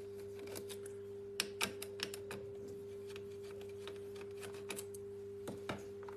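Light, irregular clicks and taps of a screwdriver and small screws being handled on a laptop's hinges and plastic case, over a faint steady electrical hum.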